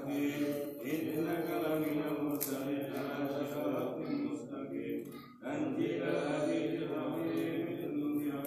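A man's voice chanting a devotional prayer recitation through a microphone and loudspeaker, in long drawn-out melodic phrases, with a pause for breath about five seconds in.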